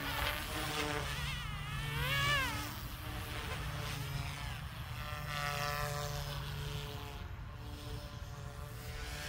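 Small electric RC helicopter (Goosky S2) in flight, its motor and rotor whine rising and falling in pitch as the throttle and blade pitch change. The whine swings sharply about two seconds in and holds steadier later on.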